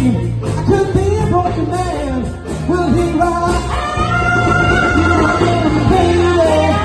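Live soul band playing: a horn section of saxophones and trumpets with electric guitar, bass and drums, and singing over it, with one long held note about two thirds of the way through.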